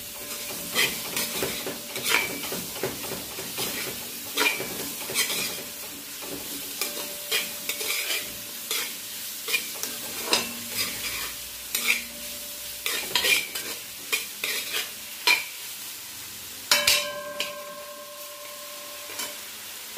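A metal spoon stirring sautéing carrots, tomatoes and onions in a large metal pot, scraping and knocking against the pot in irregular strokes. The vegetables give a light sizzle underneath.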